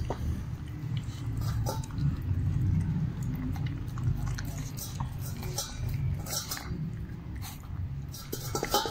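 Puppy chewing and licking a banana slice from a stainless steel bowl: irregular wet smacks and clicks, a few a second.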